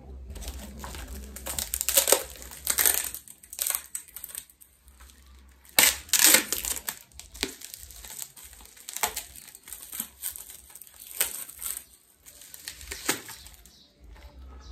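Parcel wrapping being torn open and crumpled by hand, crinkling in irregular crackles, loudest about two and six seconds in.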